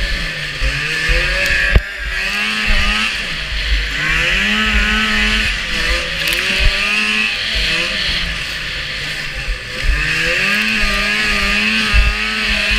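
Racing snowmobile's engine heard from on board, revving up in repeated climbs, holding high and easing off between them, about four times, over a steady hiss of track and snow with low thumps.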